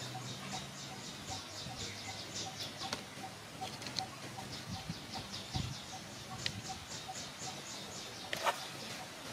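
Outdoor ambience of rapid, rhythmic high chirping, about four or five chirps a second in long runs with short pauses. A few faint clicks sound under it.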